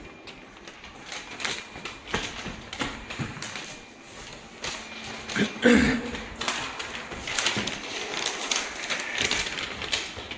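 Irregular clicks and knocks, several a second, with one louder thump about six seconds in.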